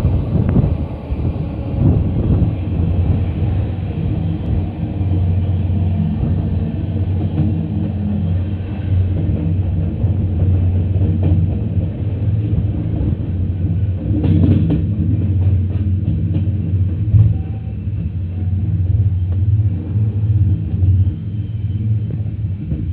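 Passenger train running at speed, heard from a coach doorway: a steady low rumble of wheels on rail with scattered clicks over rail joints.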